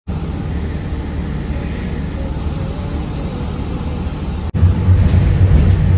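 Steady low rumble of a moving transit vehicle, heard from inside its cabin. About four and a half seconds in, the sound drops out for an instant and comes back louder and deeper.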